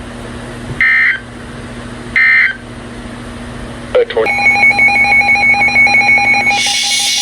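Two short bursts of EAS end-of-message data tones, each a brief warbling squawk, about a second and a half apart, marking the end of a NOAA Weather Radio alert. About four seconds in there is a click, then a steady electronic alert tone with a rapid flutter, like a phone ringing. It gives way to radio static near the end.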